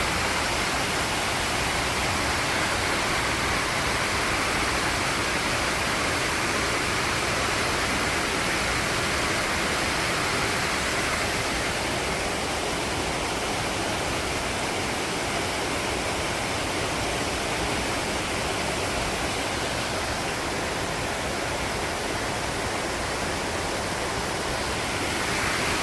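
Mountain stream running fast over rocks, a steady full rush of water.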